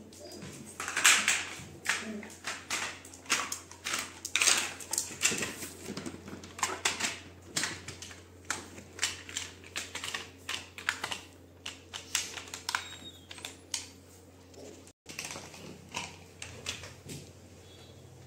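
Labrador retriever mouthing and chewing a hard plastic toy: irregular sharp clicks and clacks of teeth on plastic, up to a couple a second, fainter near the end.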